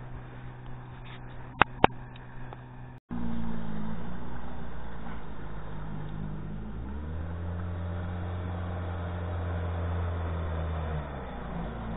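Veterok-8 two-stroke outboard motor running at speed as its small boat passes along the river. Two sharp clicks come in the first two seconds; about three seconds in the sound drops out briefly and then the engine is much louder, its deep drone strongest from about seven to eleven seconds.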